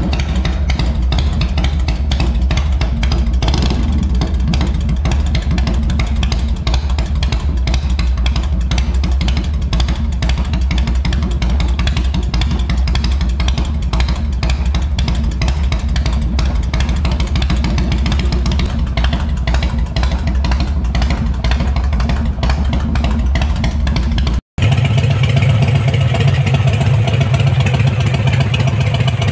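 Exhaust note of a carburetted Harley-Davidson V-twin running through heat-wrapped black drag pipes, a fast, even run of loud low pulses. About 24 seconds in, it cuts off and gives way to a Milwaukee-Eight Harley-Davidson V-twin running through a chrome Blow Performance aftermarket exhaust, a steady, somewhat higher note.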